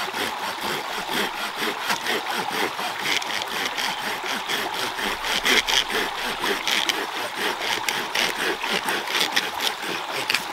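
Knives shaving and carving dry sticks in quick repeated scraping strokes, over the steady rush of a shallow rocky stream.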